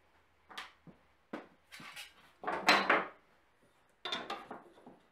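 A plywood board being handled and slid on an OSB workbench: a string of short knocks and scrapes, the loudest about three seconds in. About four seconds in, a metal combination square is set on the board with a clink and scrape.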